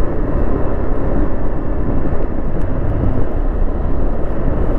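Motorcycle riding along: steady wind rush over the helmet-mounted microphone, mixed with engine and road noise.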